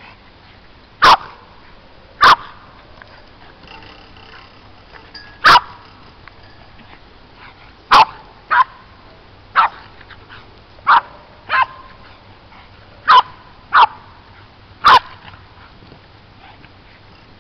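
Boston terrier barking excitedly: about eleven short, sharp single barks at irregular intervals, a few coming in quick pairs.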